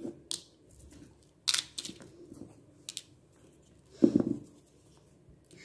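Scattered light clicks and rustles of hands handling small mirror stones and a silk-thread bangle on a cloth-covered work surface, with a duller knock about four seconds in.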